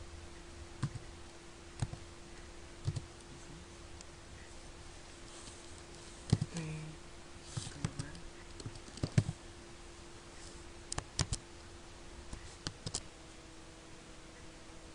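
Computer keyboard being typed on in short, irregular clicks, some in quick pairs, over a faint steady low hum.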